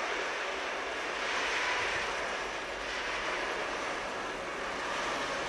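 Freight train of tank wagons behind a BR232 diesel locomotive rolling along a far track: a steady, even rumble and hiss of wheels on rail with no distinct clicks or horn.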